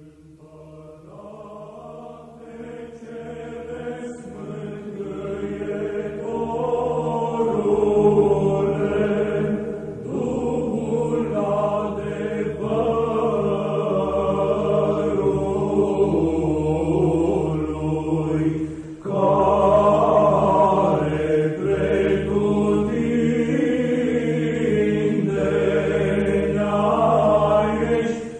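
Orthodox church chant: a choir singing a slow melody over a low held drone, fading in over the first several seconds, with a brief break about two-thirds of the way through.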